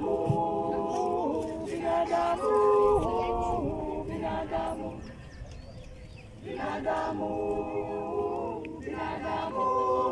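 A choir singing a hymn in harmony, in two sustained phrases with a short break about five seconds in.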